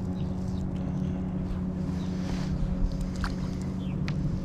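A steady low motor hum at one constant pitch, with a couple of light knocks near the end.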